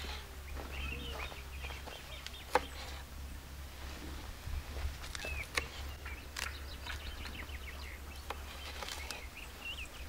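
Birds chirping now and then, with irregular sharp taps of a knife on a wooden cutting board as peppers are sliced, the loudest about two and a half seconds in.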